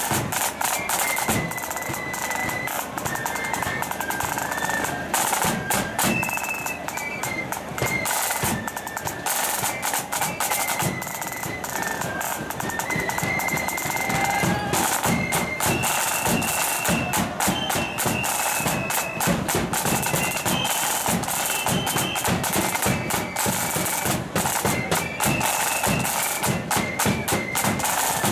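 Marching flute band playing: a high flute melody over rapid side-drum rolls and beats, with a bass drum keeping time.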